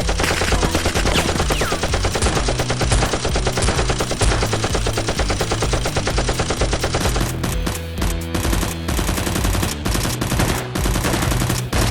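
Rapid automatic gunfire, dubbed in as battle sound effects over background music. The shots are dense at first and come in more spread-out bursts in the second half.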